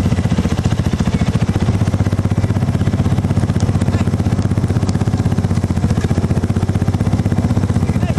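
Side-by-side UTV engine running steadily as the machine drives along, with a fast, even throb.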